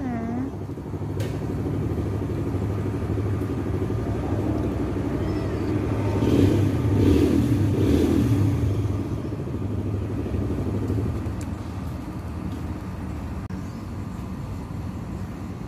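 Steady low rumble of a motor vehicle engine running, growing louder between about six and nine seconds in and then easing off.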